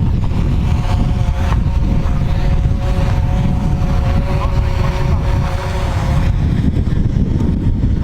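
Jet ski engine running at a steady pitch, with wind buffeting the microphone.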